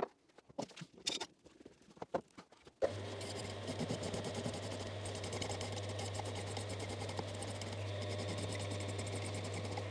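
A few faint knocks, then about three seconds in a Coborn Type 1 electric power scraper starts and runs steadily, with a low motor hum under a fast, even rattle of strokes as its blade scrapes the cast-iron vise base to break up the surface.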